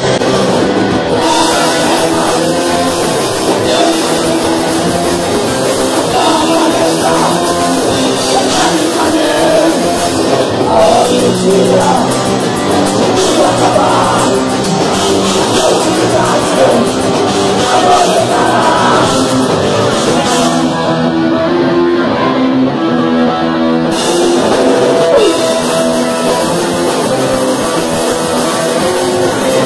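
Heavy metal band playing live: distorted electric guitar, drum kit and vocals. The top end thins out for a few seconds about two-thirds of the way through.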